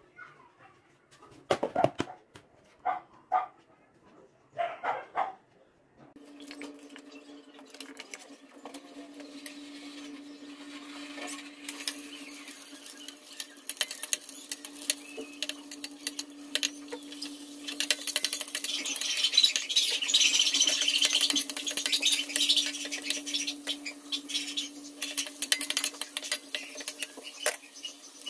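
A dog yelps and whimpers a few times at first. Then garlic, ginger and shallots sizzle in hot oil in a wok, with a metal ladle scraping and clicking against the pan; the sizzle is loudest a little past the middle, over a steady hum.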